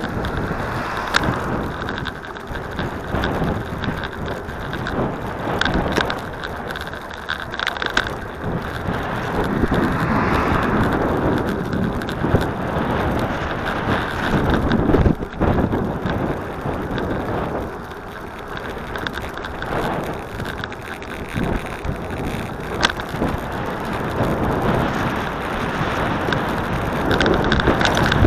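Wind buffeting the microphone and tyre and road rumble from a moving bicycle, with occasional short knocks and rattles from bumps in the road.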